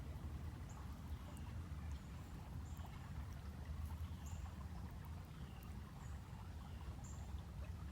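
Outdoor creek-bed ambience: a steady low rumble with faint, short high chirps repeating about every second or so.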